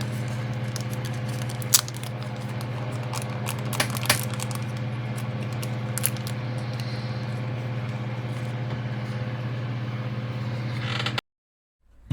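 Small plastic model parts being handled and fitted, giving a few light clicks and taps over a steady low hum. The sound cuts off abruptly near the end.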